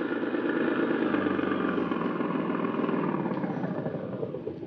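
Radio-drama sound effect of a jeep engine running, its pitch sliding gently down. It fades out near the end.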